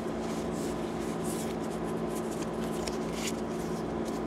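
Pokémon trading cards sliding and rubbing against each other as a stack is handled, a run of soft, irregular swishes. A steady low electrical hum runs underneath.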